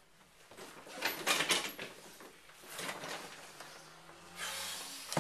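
Faint scattered knocks, scuffs and rustles of people moving about, with a short soft hiss near the end.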